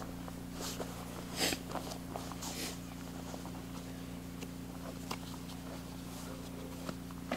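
Nylon camping gear rustling and clicking as it is handled and packed at a tent's doorway, with a few louder rustles in the first few seconds and small clicks after, over a steady low hum.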